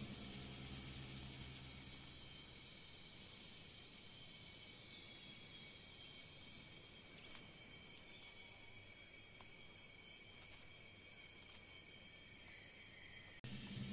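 Faint, steady high-pitched insect chorus, a continuous shimmering trill. Low background music plays for the first two seconds and then stops.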